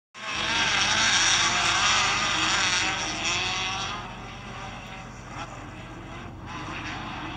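Midget race cars' engines running at high revs on a dirt oval, their pitch wavering up and down as they go through the turn. The sound is loudest at first and falls away after about four seconds as the pack moves off.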